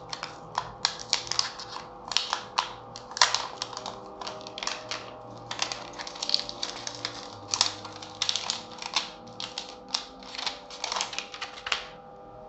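Clear plastic protective film being peeled off a new smartphone and handled, crinkling and crackling in quick irregular clicks that stop just before the end.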